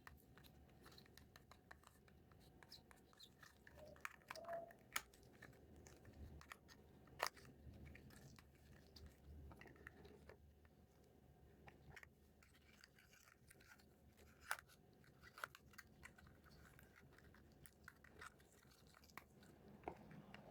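Faint, scattered clicks and taps of small plastic toy pieces being handled, with a few sharper clicks around 5, 7 and 14 seconds in.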